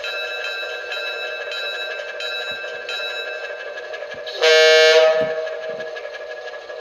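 ESU sound decoder in an Atlas O-scale Alco RS-1 diesel model locomotive, playing the prime mover's idle through its small onboard speaker, with higher tones coming and going over the first three seconds. A single air-horn blast of about half a second sounds a little past midway, the loudest sound.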